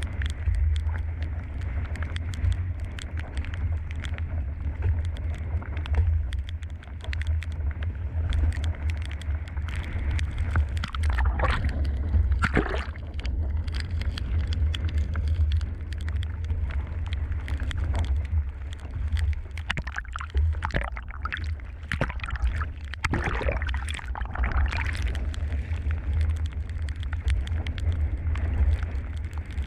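Strong gusty wind buffeting the action camera's microphone with a constant heavy rumble, over water sloshing and splashing around the windsurf board and rig. The noise swells in a few louder splashing flurries, about a third of the way in and again about two-thirds through.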